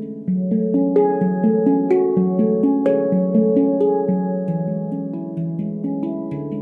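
Stainless-steel Veritas Sound Sculpture handpan in an 18-note F# Pygmy scale, played by hand: a flowing run of struck notes that ring on and overlap, with light quick finger taps between them.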